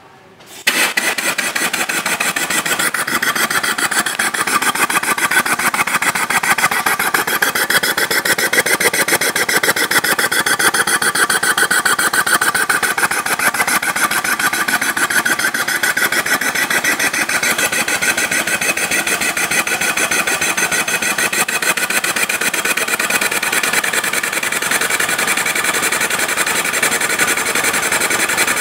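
Diesel engine converted to run on non-petroleum fuel, running steadily with a fast, even pulsing beat. It comes in abruptly about a second in.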